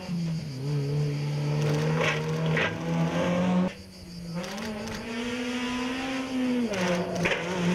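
Suzuki Swift Sport rally cars' four-cylinder engines at high revs as two cars pass in turn. The first car's note holds steady and cuts off abruptly about four seconds in; the second's note climbs, holds, then dips sharply near the end.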